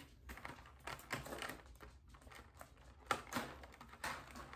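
Faint, scattered light taps and clicks of plastic painting-kit pieces, paint trays and brushes being handled on a table.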